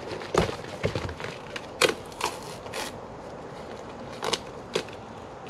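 Cured expanding spray-foam insulation and cardboard being snapped and torn off a foam archery target: a series of sharp cracks and crackles, the loudest about two seconds in.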